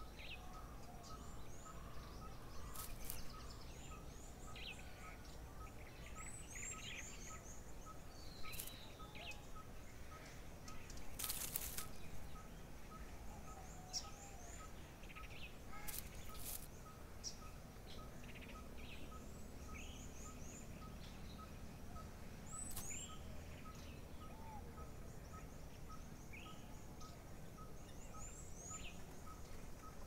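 Quiet garden birdsong ambience. Several small birds give high thin chirps and short downslurred whistles, over a steady, evenly spaced series of short notes at one pitch.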